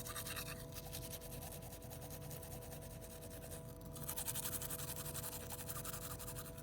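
Toothbrush scrubbing teeth, a quick steady scratchy brushing that pauses briefly and picks up again more strongly in the second half.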